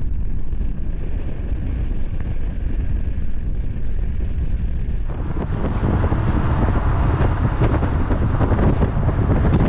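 Wind buffeting a microphone mounted on the outside of a moving vehicle, over the vehicle's steady low rumble. About halfway through, the wind noise turns louder and hissier.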